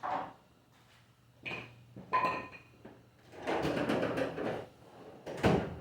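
Nails being pulled from a wooden cabinet door by hand: a few sharp knocks and metal clinks, one with a short ring, then about a second of rustling scrape and a heavier knock near the end.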